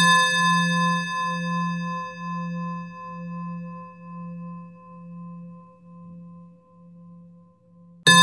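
A struck bell rings and slowly fades, its low hum wavering in loudness under several higher ringing tones. It is struck again right at the end.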